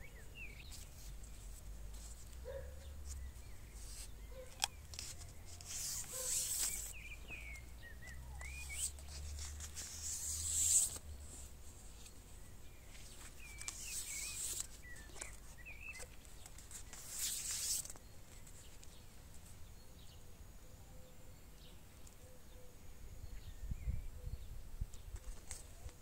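Clear plastic grafting tape crinkling and rustling in four bursts of about a second each as it is stretched and wound around a pear branch over a graft. Faint bird chirps in the background.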